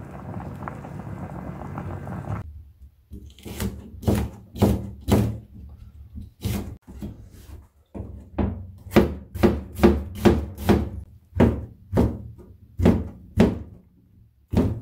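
A pot boiling with a steady bubbling hiss that cuts off after a couple of seconds. Then a kitchen knife chopping onion and oyster mushrooms on a plastic cutting board: about twenty sharp knocks, uneven and sometimes in quick runs.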